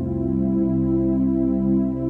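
Slow background music of held chords, changing chord just as it begins.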